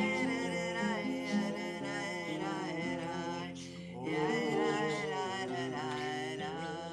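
A voice singing a slow, flowing melody over an instrumental accompaniment that includes plucked strings.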